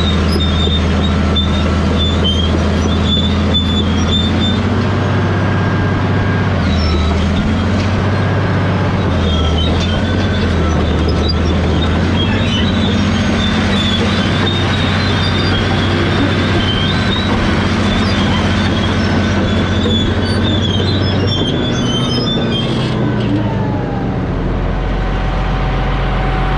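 Caterpillar D10 crawler dozer running under load, its big diesel engine droning steadily while the steel tracks squeal and metal screeches. Near the end the engine speed drops.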